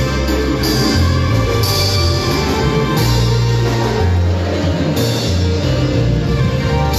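Live marimba band playing, with a strong bass line changing note every second or so.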